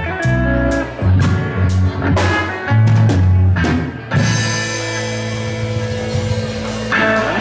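Live reggae band of electric guitar, electric bass and drum kit playing the closing bars of a song. About four seconds in, the rhythm stops on a held final chord with a cymbal crash that rings on.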